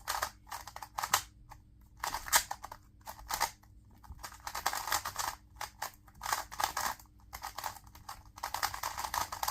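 A 2x2 speed cube being turned fast during a timed solve: quick runs of plastic clicking and clacking as the layers snap round, in bursts with short pauses between.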